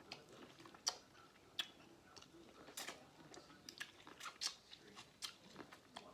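Close-miked wet mouth sounds of someone eating seafood boil: smacking and chewing clicks, several sharp ones a second, at a low level.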